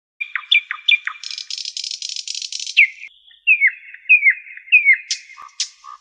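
A small songbird singing: a few quick falling chirps, then a buzzy rattle lasting about a second and a half, then a run of slurred falling notes and two sharp high notes near the end.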